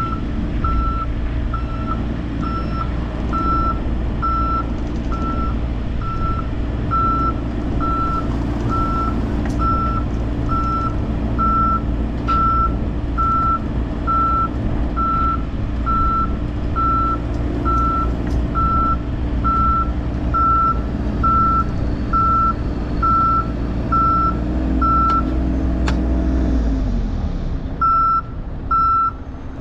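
Travel/reversing alarm on a Volvo compact excavator beeping steadily about twice a second over its running diesel engine. Near the end the beeping pauses for a couple of seconds as the engine note drops, then starts again.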